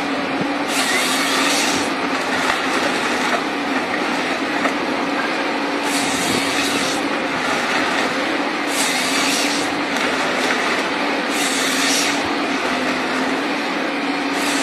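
Forestry harvester's engine and hydraulics running steadily as its harvester head feeds a log and cuts it to length. Four higher-pitched bursts, each about a second long, from the head's chain saw cutting through the log.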